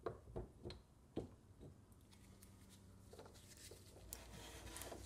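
Faint clicks and light knocks of metal parts as a tilting fixture plate is handled and taken apart, a few in the first second and a half, then near silence with faint hiss.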